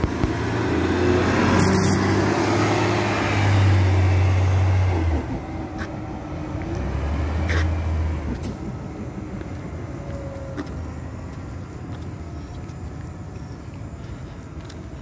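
Transit bus pulling away from a stop close by: its engine runs loud and low for about five seconds, drops off suddenly, surges again briefly a couple of seconds later, then fades as the bus drives away down the street.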